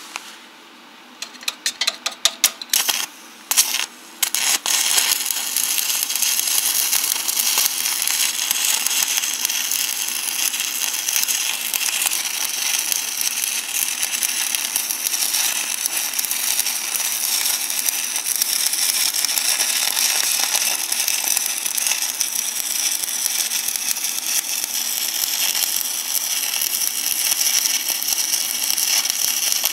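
Electric arc welding: the arc is struck in a handful of short crackling bursts, then catches about four seconds in and runs as a steady, dense crackling sizzle.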